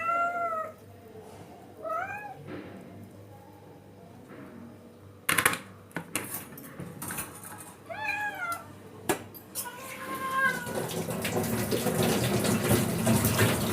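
Hungry domestic cats meowing four times, each meow rising then falling in pitch, as they wait to be fed. A few sharp clicks fall in the middle, and about ten seconds in a steady rustling, squishing noise builds up: food being mixed by hand in a bowl.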